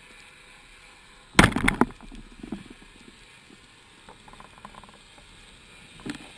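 Underwater shot of a wooden Thorpedo 93 inverter speargun: a sharp, loud clatter about a second and a half in as the bands release and the shaft launches, followed by lighter clicks and ticks of the running shaft and line, and a smaller knock shortly before the end.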